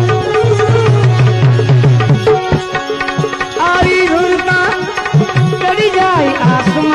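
Instrumental interlude of a Gujarati bhajan: hand drums keep a rhythm under a held note, while a melody line that slides up and down in pitch comes in during the second half.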